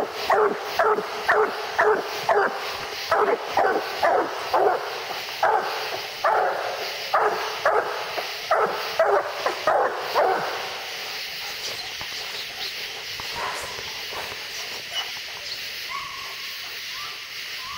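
Coonhounds barking treed at the foot of a tree: a fast, steady run of chop barks about two a second, which stops about ten seconds in. A steady high hiss lies underneath throughout.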